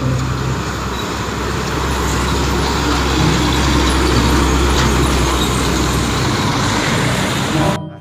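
Tanker truck driving past close by: engine rumble and road noise that grow louder as it passes, then cut off abruptly near the end.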